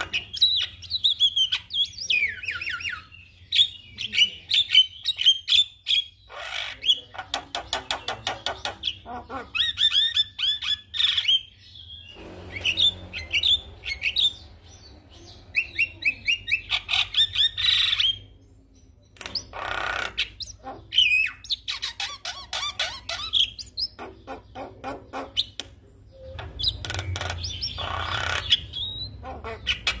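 Javan myna singing in a long, varied run: rapid clicking rattles, falling whistles and harsh squawking notes, with a short pause about two-thirds of the way through.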